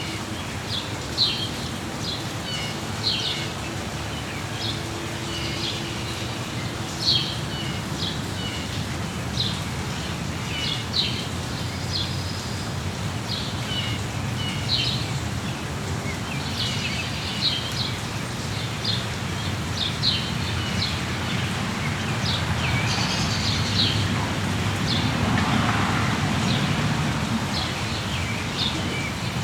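Small songbirds chirping and trilling with many short, high calls, over a steady hiss of rain. About two-thirds of the way through, a swell of rushing noise rises and fades.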